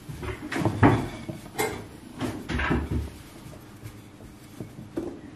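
Wooden rolling pin rolling out dough on a stone countertop: a run of irregular knocks and rumbling bumps for about three seconds, then a few faint clicks.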